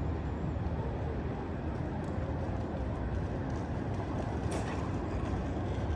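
Steady low rumble of outdoor background noise with no distinct event standing out.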